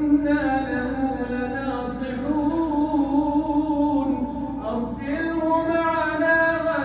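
A man's solo Quran recitation in the melodic, drawn-out style of tajwid, holding long notes that slide and step between pitches.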